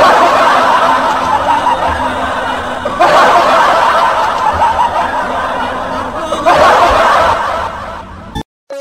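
Laughter, in three waves that each start suddenly and fade over about three seconds.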